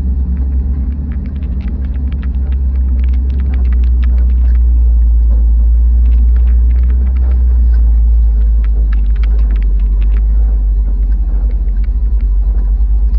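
1977 Chevrolet Scottsdale pickup's engine pulling hard as the truck climbs a sandy hill trail, heard inside the cab as a heavy, steady low rumble. Frequent light clicks and rattles come through as the truck bounces over the ruts.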